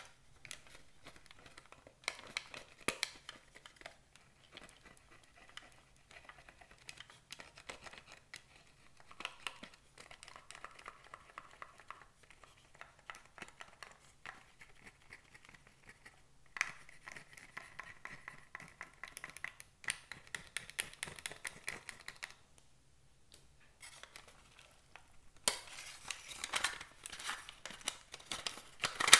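A plastic spatula scraping and tapping at pressed eyeshadow powder in a plastic toy makeup palette: many small clicks and scratching, with a denser stretch of scraping in the middle. Near the end the plastic palette case is handled, with louder taps and clatter.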